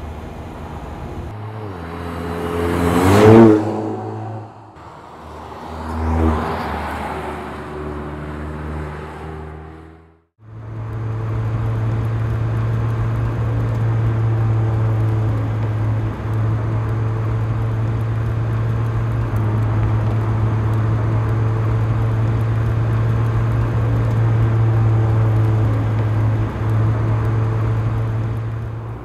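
Mercedes-Benz CLA 45 AMG's turbocharged 2.0-litre four-cylinder engine. The car passes close by twice, each time the engine note swelling and falling in pitch. After a brief silence about ten seconds in, it holds a steady drone at constant revs, with two short dips.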